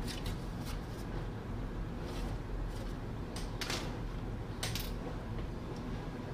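A laptop's removed bottom cover and open chassis being handled by hand: a string of light clicks and scrapes, the sharpest a little past three and a half seconds in and near five seconds, over a steady low hum.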